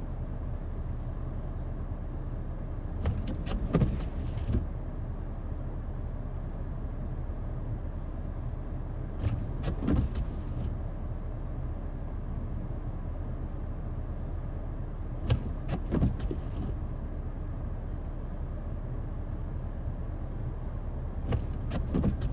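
A vehicle engine idling with a steady low hum. About every six seconds a short cluster of clicks and squeaks cuts in, four times in all.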